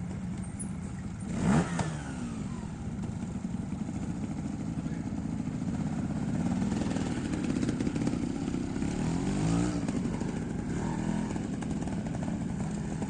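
Trials motorcycle engine running, with a sharp throttle blip about a second and a half in and more revving up and down later on.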